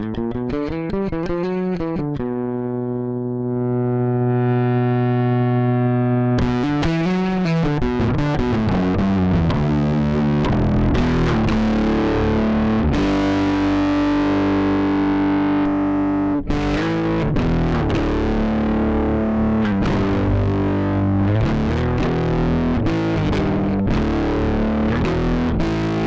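Electric bass, a Yamaha BBNE2, played through an EBS MetalDrive distortion pedal, giving a distorted bass tone. It opens with sliding notes, then holds one long note for about four seconds. From about six seconds in it turns brighter, with busier riffs and a brief break just after sixteen seconds.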